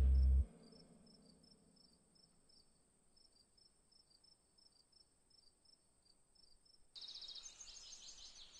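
Background music cuts off about half a second in, leaving near silence. About seven seconds in, high, rapid chirping of insects mixed with short bird chirps starts up.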